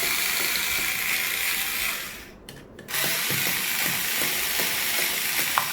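Small cordless electric screwdriver running in two long spells, with a short break a little over two seconds in, backing out the screws that hold the old wall switch.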